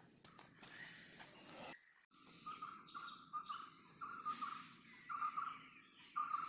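A bird calling faintly: short notes at one pitch repeated in irregular runs, a few a second, starting about two seconds in.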